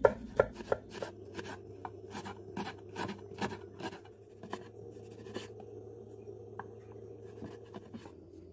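Kitchen knife chopping a green chile and then slicing a tomato on a wooden cutting board: a string of quick knocks of the blade against the board, two or three a second in the first few seconds, then sparser and fainter.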